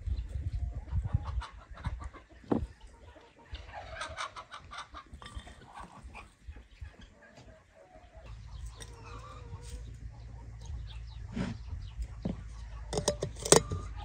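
Domestic chickens clucking in the background, with a few sharp clicks and knocks, the loudest near the end.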